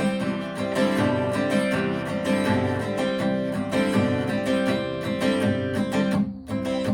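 Acoustic guitar strumming steadily through an instrumental break in a song, with a short drop-off near the end.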